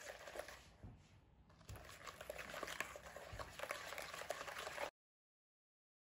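Eggs being whisked by hand with a wire whisk in a bowl: rapid wet slapping of the liquid with light clicks of the wires against the bowl. It eases off briefly about a second in, then picks up again and cuts off abruptly near the end.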